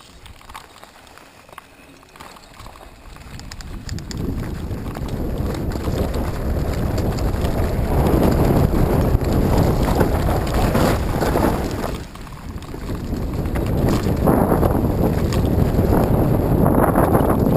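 Wind rumbling on a GoPro's microphone in an open skeleton housing, building up from quiet over the first several seconds, dipping briefly about twelve seconds in, then rising again.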